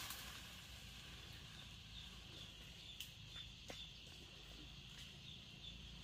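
Quiet forest ambience: a faint, high chirping repeats a few times a second, with two sharp clicks a little past halfway.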